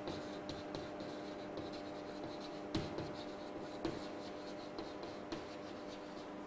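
Chalk writing on a blackboard: a run of short strokes and taps, with a couple of sharper taps about three and four seconds in. A faint steady hum lies underneath.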